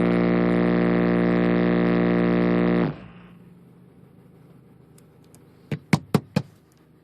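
Two 12-inch Rampage car subwoofers playing a bass burp: a single steady, loud low tone with a buzz of overtones that stops abruptly about three seconds in. Four sharp clicks follow in quick succession near the end.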